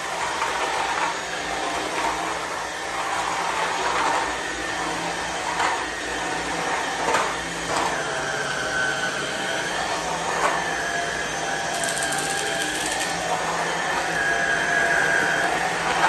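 Inse S600 cordless stick vacuum running steadily while it is pushed back and forth over a tile floor. A constant motor whine is broken by a few brief clicks from the floor head.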